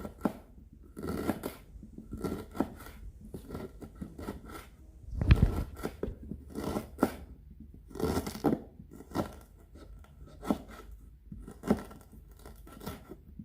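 Knife slicing fresh ginger root into thin slices: a run of short, irregular cuts, about one to two a second, the loudest about five seconds in.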